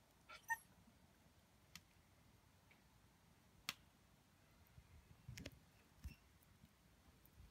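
Wood fire in a metal fire pit crackling faintly, with a handful of sharp, scattered pops. The loudest pop comes about half a second in.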